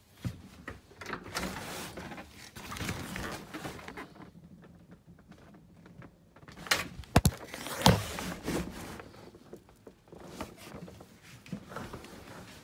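Rustling and bumping as stowed gear and fabric are pushed about in a cluttered locker, with a few sharp knocks and clicks about seven to eight seconds in.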